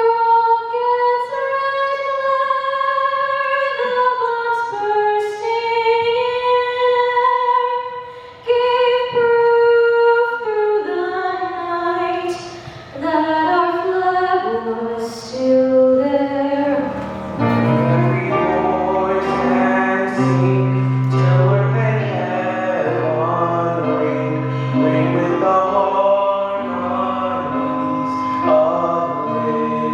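A woman sings solo without accompaniment, holding long, slowly moving notes. About seventeen seconds in, instruments join beneath her with low bass notes and chords.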